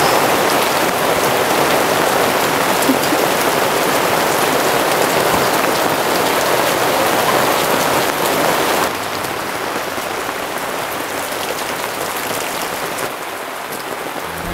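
Heavy rain pouring down in a dense, steady patter. It gets a little quieter about nine seconds in and again near the end.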